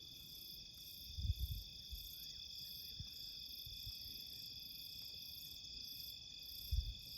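Night insect chorus of crickets trilling steadily at several pitches, with a faster pulsing trill high above, so loud. A couple of low thumps about a second in and near the end.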